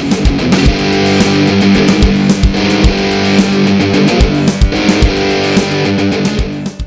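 Background music: loud, driving electric-guitar rock with a steady drum beat, cutting off abruptly at the end.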